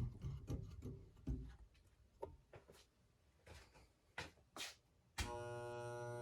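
A few clicks and knocks, then a sharp click about five seconds in, after which the Casablanca Four Seasons III ceiling fan's motor gives a steady electrical buzz: the buzz it makes on a solid-state speed control.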